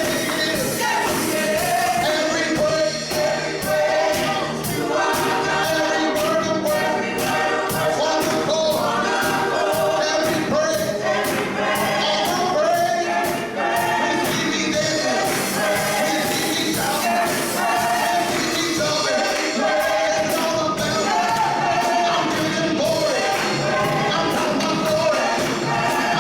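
Gospel choir singing with a full band and a steady beat.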